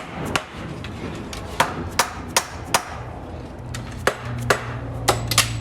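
Mallet tapping on an engine's timing chain cover to break it loose from the block: about nine sharp knocks, spaced irregularly.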